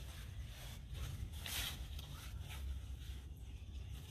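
Pieces of cardboard being handled and swished over a charcoal fire pit: a few short papery swishes over a steady low rumble of wind on the microphone.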